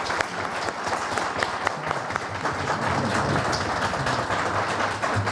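A room full of people applauding steadily, many hands clapping at once.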